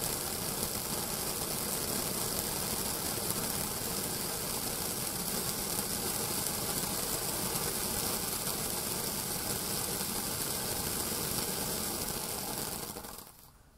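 Celtic Fireworks Monte fountain, a fanned ground firework fountain, spraying sparks with a steady, even hiss. The sound fades out near the end.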